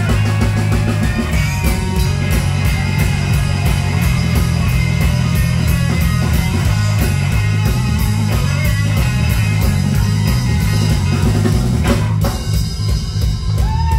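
Live electric blues band playing loud: electric guitars and electric bass over a drum kit keeping a steady beat. About twelve seconds in the upper parts thin out and the bass-heavy groove carries on.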